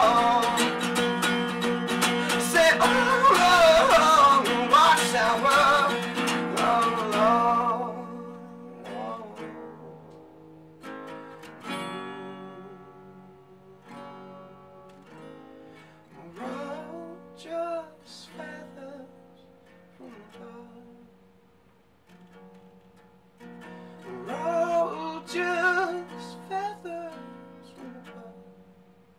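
Solo acoustic guitar and voice: a sung line over loud strumming for the first several seconds, then the guitar drops to quiet, sparse picked notes and chords, swelling a little twice.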